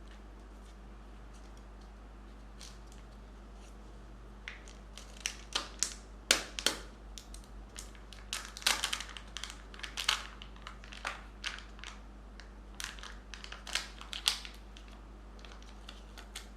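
Candy egg wrapper being crinkled and torn open by hand: irregular sharp crackles that start about four seconds in and thin out near the end.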